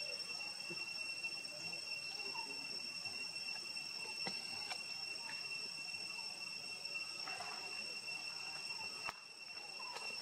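Insects shrilling steadily at two constant high pitches, with a few faint clicks and a brief dip in level about nine seconds in.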